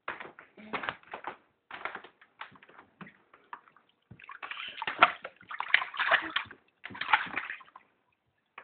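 Bath water splashing and sloshing in a tub as a child bathes, in irregular bursts that are loudest from about four to seven and a half seconds in.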